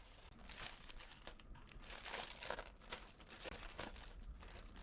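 Plastic packaging crinkling and rustling in irregular bursts as items are handled and packed by hand.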